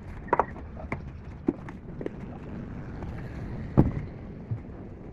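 Scattered knocks and clicks of hand work over a steady low rumble, with one loud knock near four seconds in.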